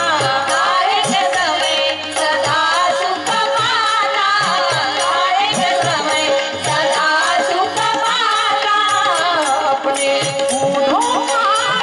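Women singing a Hindi devotional bhajan in a group, with tabla drumming and a steady held note underneath.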